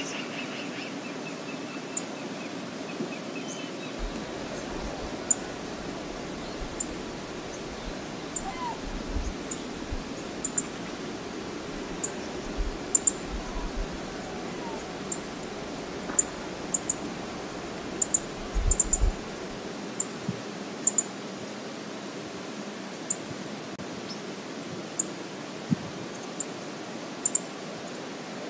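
Steady rushing noise of river water and wind at an outdoor camera microphone, with wind rumbling on the microphone from about four to twenty seconds in. Short, high ticks come scattered throughout.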